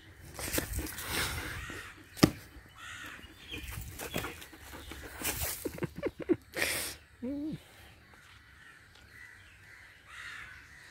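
Close rough play with a German Shepherd: scuffling and noisy bursts with a sharp knock about two seconds in and a run of clicks. About seven seconds in comes a short animal call that falls in pitch.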